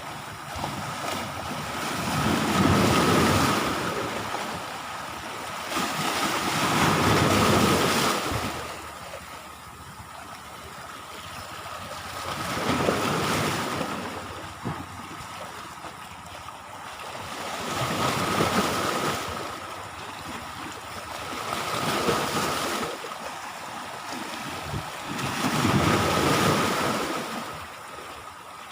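Sea waves breaking and washing up the shore, swelling and fading in slow surges about five seconds apart, with some wind on the microphone.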